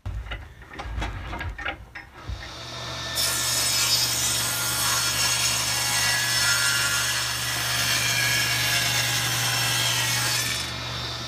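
A few handling knocks, then a table saw motor starts up about two seconds in with a steady hum. The saw then rips a long laminated hardwood board lengthwise for about seven seconds. The cut ends shortly before the close, and the motor keeps running.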